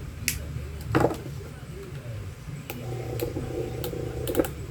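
A few sharp clicks and knocks of hand tools and small fan parts being handled, with a louder click about a second in and a quick cluster of clicks near the end.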